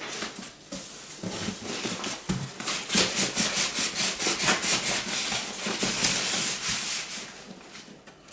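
Packaging scraping and rubbing as an electric melting furnace is slid and handled in its box, with a run of quick rubbing strokes between about three and seven seconds in that fades out near the end.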